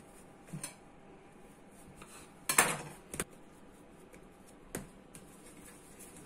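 Kitchen utensils knocking and clattering on a stone countertop. There is a light double knock early, a louder clatter with a brief ring about two and a half seconds in, then two more single knocks.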